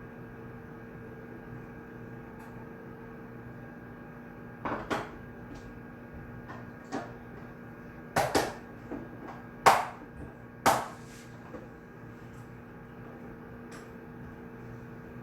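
Study-room ambience: a steady hum of the room, broken by a cluster of sharp knocks and clatters of small objects between about five and eleven seconds in, the loudest near ten seconds.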